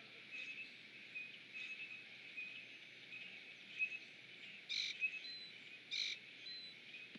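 Faint outdoor evening chorus of small peeping calls, short high chirps repeating several times a second over a steady high haze. Two brief harsh, scratchy sounds stand out, about five and six seconds in.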